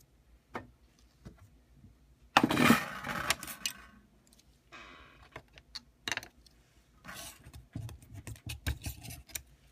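Handling noise on a repair bench: a scatter of light clicks and clinks of small tools and parts, with one louder clatter about two and a half seconds in and more clicks near the end.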